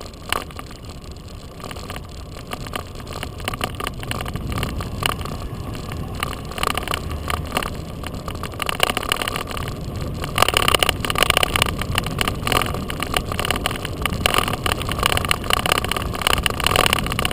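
Riding a bicycle along a road: steady tyre and road noise with many small rattles and clicks from the bike, getting louder and busier about ten seconds in.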